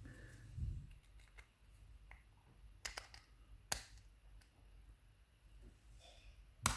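Faint handling noise and a few sharp clicks, the loudest near the end, from tools working at the retaining circlip of a Zeiss Ikon WSW lock cylinder.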